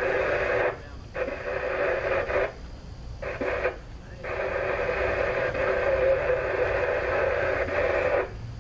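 Radio transmission heard through a scanner or two-way radio speaker, with thin, narrow-band audio that drops out briefly three times and cuts off abruptly near the end as the squelch closes.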